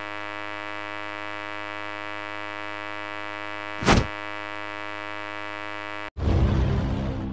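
Animation sound effects: a steady buzzing drone with many overtones, broken by a brief loud burst about four seconds in. About six seconds in, the drone cuts off and a loud noisy crash with a deep rumble takes over and fades.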